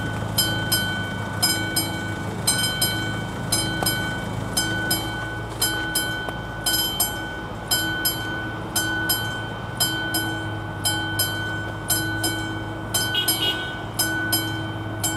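Level-crossing warning bell of an AŽD 71 signal, a classic mechanical bell, striking in quick pairs about once a second while the crossing is closed. Under it, a train's low rumble fades away in the first few seconds.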